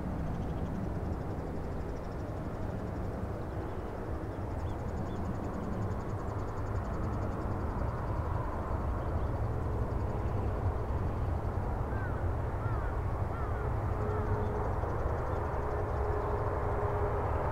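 Airbus A330 jet engines rumbling as the airliner rolls out on the runway after landing, slowly growing louder. A steady whine joins in about three-quarters of the way through.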